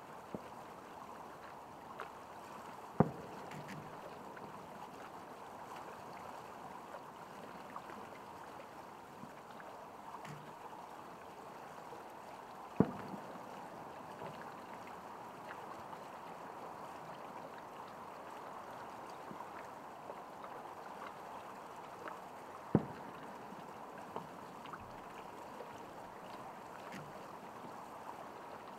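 Fireworks shells bursting overhead: three loud booms about ten seconds apart, with a few fainter pops between them, over a steady background hiss.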